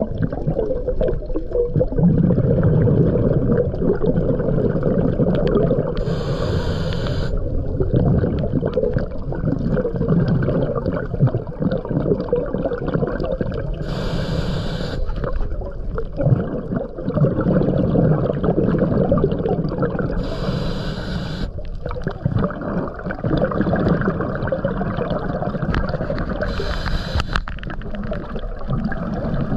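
Scuba diver breathing through a regulator underwater: four short hissing inhales, about six to seven seconds apart, with bubbly, gurgling exhales rumbling in between.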